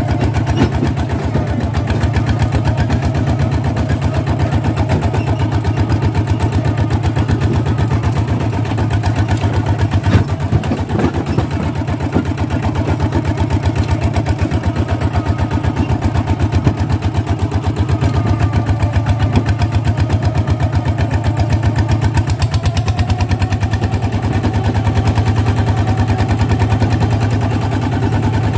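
Single-cylinder diesel engine of a two-wheel walking tractor running steadily with an even, rapid chug while the tractor drives along. Its note shifts slightly about two-thirds of the way through.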